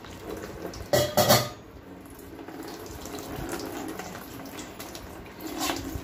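Water poured from a bowl onto wet ground wheat in a steel mesh strainer, splashing and draining through into a plastic tub below, loudest about a second in. The water is washing the milky wheat starch through the mesh and leaving the bran behind.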